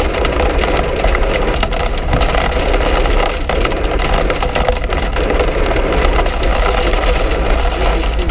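Hail pelting a vehicle's body and windshield in a dense, rapid rattle of hard clicks, over steady low road and engine rumble, heard from inside the cabin.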